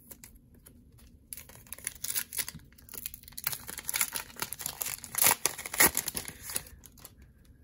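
Plastic wrapper of a 2021 Panini Chronicles Soccer cello pack crinkling and tearing as it is pulled open by hand. It starts about a second in and stops shortly before the end.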